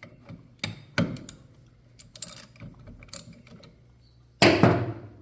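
Metal clicks and knocks of a brake pad and its retaining spring being worked out of a utility vehicle's rear disc brake caliper by hand, with a louder clatter lasting about half a second near the end.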